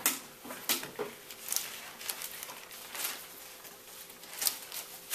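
Thin Bible pages being leafed through by hand: a string of short paper rustles and swishes as the pages turn.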